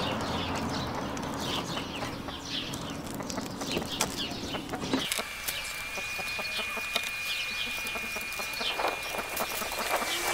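Birds calling around the scene with chicken-like clucks and short chirps. About halfway through a steady high tone starts and holds.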